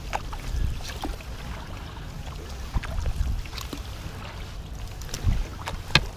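Kayak paddle strokes on calm sea water: the Werner paddle blades dip in and lift out with light, irregular splashes and drips, over a steady low rumble. A sharp tap comes near the end.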